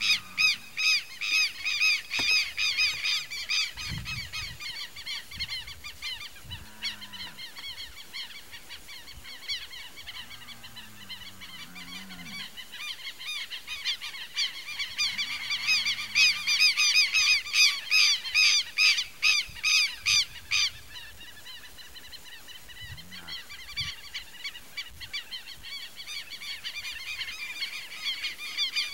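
Birds calling in a dense, rapid chatter of repeated high calls. The chatter swells loudest over several seconds past the middle, drops away abruptly about two-thirds of the way in, then carries on more thinly. A few low, drawn-out calls sound now and then beneath it.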